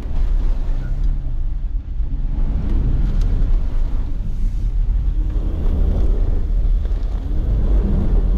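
Jeep Gladiator's V6 engine and tyres rumbling steadily from inside the cab as the truck drives along a wet, muddy trail.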